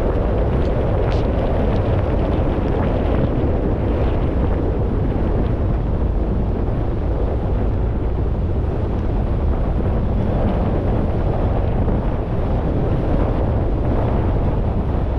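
A car driving on a wet road: a steady low road and engine noise, with wind noise over it.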